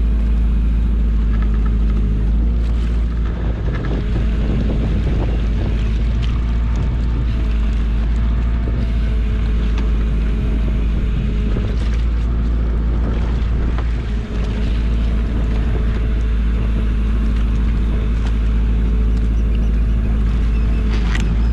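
Small fishing boat's engine running steadily under way, a constant low drone over a heavy low rumble.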